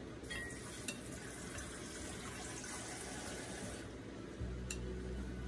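Water running from a kitchen tap for about three and a half seconds, then shut off abruptly. A low steady hum comes in near the end, with a couple of light clicks.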